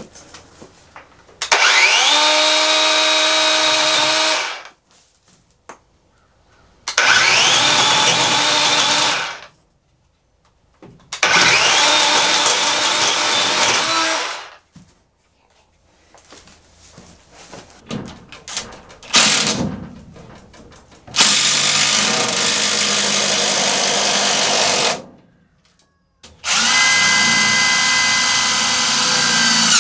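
DeWalt cordless battery chainsaw trimming small logs in five bursts of a few seconds each. Its motor whines up to speed at the start of each burst, then runs steadily through the cut. Short knocks come between the cuts.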